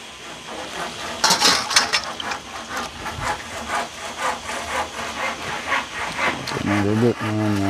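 A knife chopping vegetables on a wooden cutting board in quick, even strokes, about five a second.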